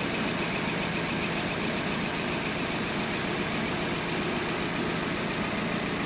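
2003 Hyundai Elantra 2.0-litre four-cylinder engine idling steadily with a miss: cylinder 3 is misfiring, caused by a leaking intake manifold gasket.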